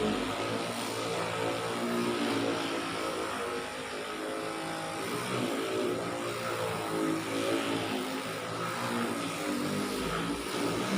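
Handheld electric 'dolphin' vibrating massager buzzing as it is worked over the patient's body, its motor hum shifting up and down in pitch.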